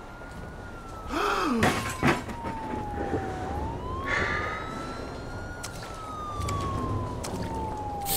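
A siren wailing slowly, its pitch falling and rising again about every five seconds. A short vocal sound and two sharp hits, the loudest sounds, come between one and two seconds in, and another short burst about four seconds in.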